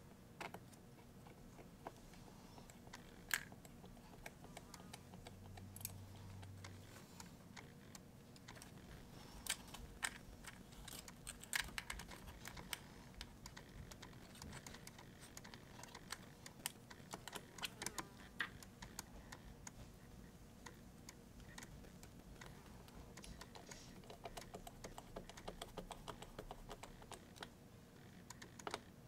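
Faint, irregular small clicks and taps of tools and small parts being handled while working on an opened MacBook Pro laptop.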